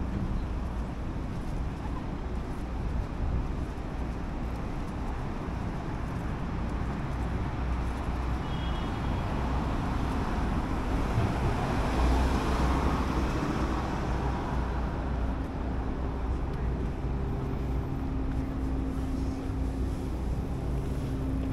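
City street ambience: steady road-traffic rumble that swells to its loudest about halfway through, with a steady low hum coming in during the last few seconds.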